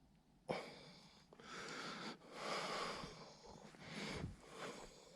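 A person breathing hard and sniffing close to the microphone: a sharp sniff about half a second in, then several long breaths in and out.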